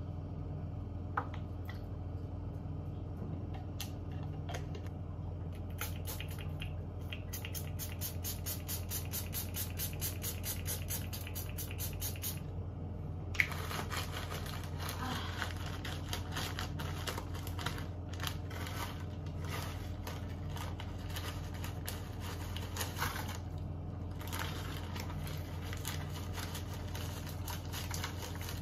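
Dense crackling and crinkling of hands handling things over a plastic basin, over a steady low hum. Near the end salt is poured from a crinkling plastic zip bag into the basin.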